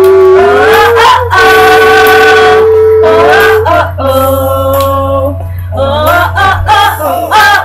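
Two young women singing together, holding two long notes and then breaking into quick vocal runs near the end, over a steady low hum.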